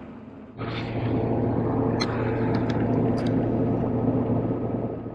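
Truck driving at road speed: steady engine and road noise with a low hum, starting about half a second in and dropping away near the end, with a few faint ticks in the middle.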